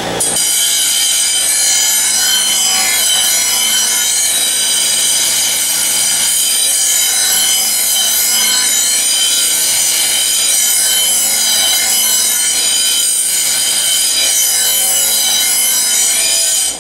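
Steel commercial mower blade ground on a Delta bench grinder wheel: a loud, steady, harsh grinding over the hum of the grinder motor as the top of the blade is ground down to take out its thickness. The grinding stops abruptly at the very end.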